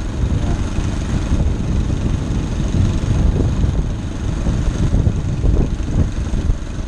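Homemade rail cart rolling along old railroad track: a steady low rumble of the cart running on the rails.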